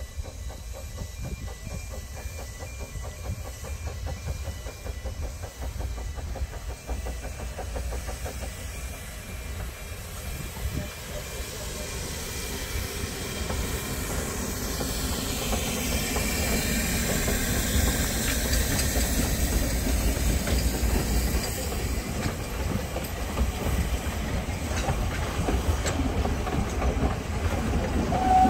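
Narrow-gauge steam locomotive and its carriages approaching and running past close by, the rumble growing louder, with a hiss of steam as the engine goes by about halfway through. The carriages then click over the rail joints.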